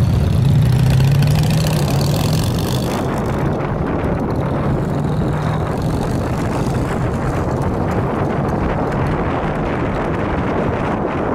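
Motorcycle engine pulling away from a stop, a steady low hum that fades about three seconds in under wind rushing over the microphone as the bike picks up speed.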